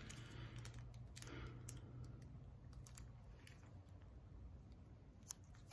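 Faint handling sounds of cigars in cellophane wrappers: scattered light crinkles and clicks, with one sharper click about five seconds in.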